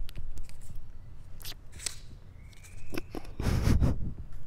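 Handling noise from fingers rubbing and gripping a clip-on lavalier microphone: scattered clicks and scraping, with a louder rubbing rumble about three and a half seconds in.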